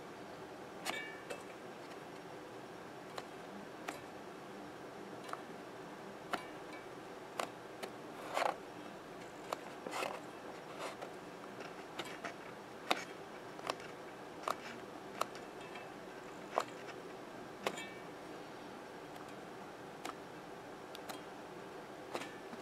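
Light clicks and taps of hands working a loudspeaker cone and its replacement foam surround, roughly one a second and uneven in strength, over a faint steady hum.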